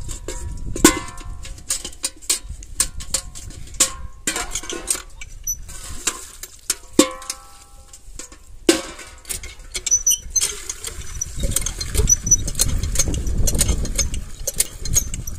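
A steel bucket knocking and ringing as it is rinsed under a hand pump's spout, several clanks in the first nine seconds. From about ten seconds in the hand pump is worked and water gushes steadily into the bucket.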